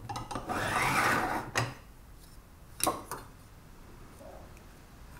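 A metal combination square being slid and set against a woodworking vise: a rubbing scrape for about a second and a half, then two sharp clicks.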